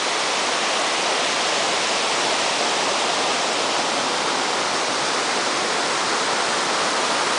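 A waterfall rushing, a steady, even hiss of falling water.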